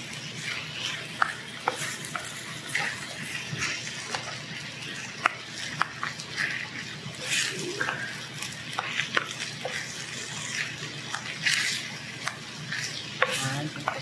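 Fried rice sizzling on a hot griddle plate while two plastic spatulas scrape, chop and toss it, with many short clicks of the spatulas striking the plate.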